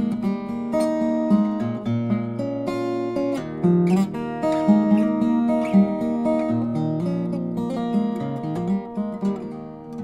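Solo steel-string acoustic guitar played fingerstyle: a traditional Irish piece, separate plucked melody notes ringing over lower bass notes.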